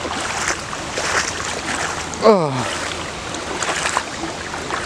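Feet wading through deep floodwater, sloshing and splashing irregularly with each step. A short falling groan is heard about two seconds in.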